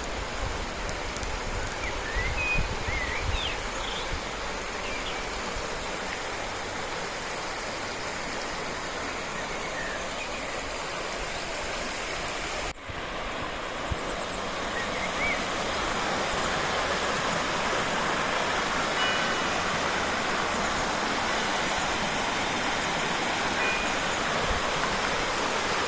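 Steady rush of water pouring over a river barrage, a little louder after a brief break about halfway through.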